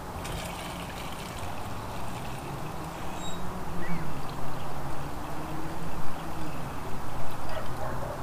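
Gasoline pouring from a plastic gas can through its spout into a lawn mower's fuel tank, growing louder and more uneven about three seconds in.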